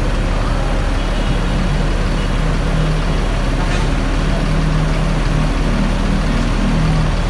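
Scania coach's diesel engine idling steadily with a low drone.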